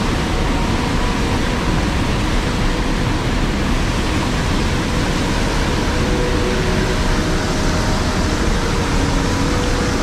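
Mountain stream water rushing steadily over rocks, a loud, even rush.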